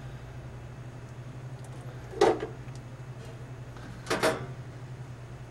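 Steady low hum, with two brief sounds about two and four seconds in as a crimp clamp is handled and fitted onto beverage syrup tubing at a stainless steel union.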